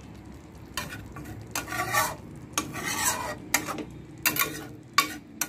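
Flat spatula stirring and scraping a thick vegetable curry against the side of a metal kadai: about ten rasping strokes, some short and some drawn out.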